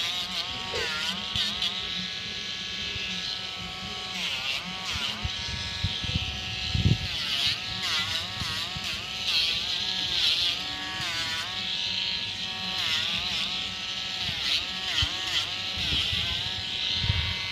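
Rotary nail grinder with a sanding drum running with a steady high whine. Its pitch dips and recovers again and again as the drum is pressed to a dog's toenails and lifted off. There is a low thump about seven seconds in.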